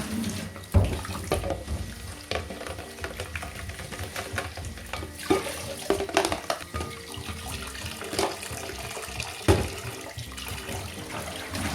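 Tap water running into a kitchen sink, with repeated knocks and clatter from items being handled in it.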